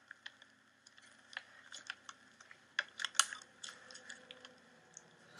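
Faint, irregular clicks and rustles of plastic wiring connectors and harness being handled and pushed into place, with a few sharper clicks about three seconds in.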